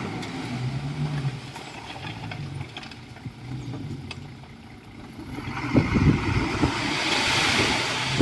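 Heavy diesel engine of a Komatsu D51EX crawler bulldozer running steadily, then getting louder from about five and a half seconds in, with knocks and a rising rush of noise.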